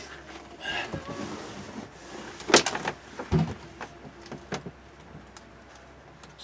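Cordless drill driving screws through an RV window's interior trim ring. The motor runs in short bursts among several sharp knocks and clicks, the loudest about two and a half seconds in.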